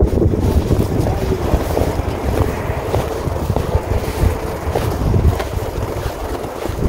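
Wind buffeting the microphone: a low rumble that rises and falls in gusts.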